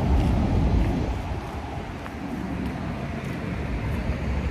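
Low outdoor rumble, loudest at the bottom end, that dips about two seconds in and then builds again.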